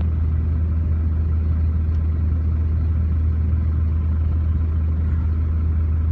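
Scania truck's diesel engine idling, heard from inside the cab as a steady low rumble.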